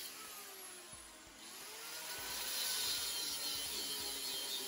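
Power tool cutting steel leaf-spring U-bolts and bolts off a truck axle: a steady hissing grind that grows louder about a second and a half in.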